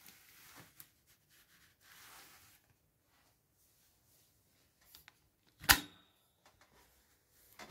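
Faint rustling as fingers handle a diamond painting canvas, then one sharp knock near six seconds in as the phone filming it is picked up and moved: handling noise at the end of a recording.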